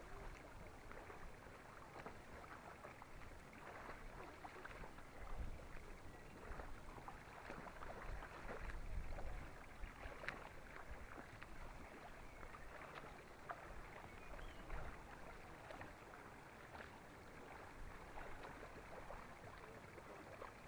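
Faint waterside ambience: small waves lapping with a steady light crackle, and a few low rumbles about five and nine seconds in.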